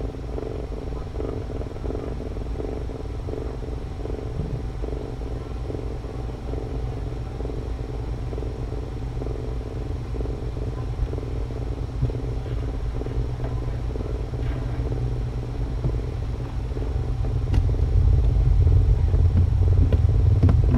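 Domestic cat purring steadily while being stroked, a low, rapidly pulsing rumble. A deeper rumble swells up over the last few seconds.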